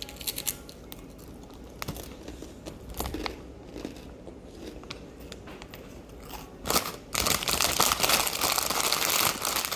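Scattered small crunches and clicks of eating, then from about seven seconds a loud, continuous crinkling of food packaging being handled.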